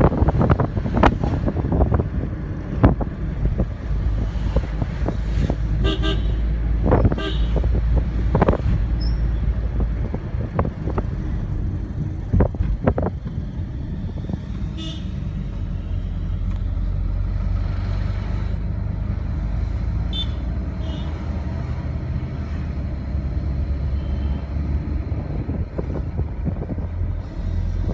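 Taxi driving along a road, heard from inside the cabin: a steady engine and road rumble, a few knocks in the first seconds, and several short horn toots spread through.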